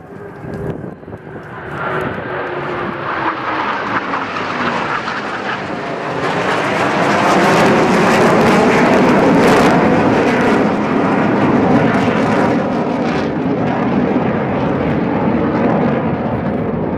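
Jet engine noise from a formation of military jets flying past overhead. It builds over the first couple of seconds, is loudest about eight to ten seconds in, then eases slightly while staying loud.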